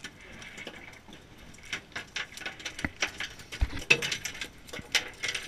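A freshly landed chub mackerel thrashing, its body slapping in rapid, irregular patters, with a heavier thump about three and a half seconds in.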